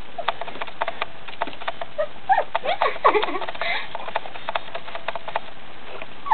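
Three-week-old puppies squeaking and whining as they wrestle, with a cluster of short squeals sliding up and down about two to three seconds in, over scattered light ticks.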